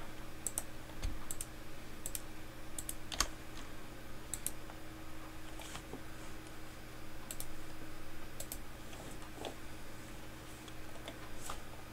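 Scattered clicks of a computer mouse and keyboard being worked, many of them in quick pairs about every second or two, over a faint steady low hum.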